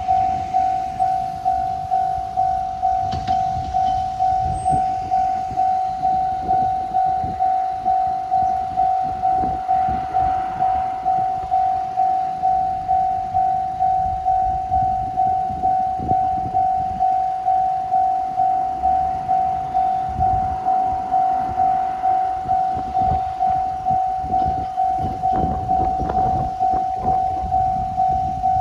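Railway level crossing warning bell ringing a single high tone over and over in a rapid, even rhythm: the signal that a train is approaching. Road traffic rumbles underneath.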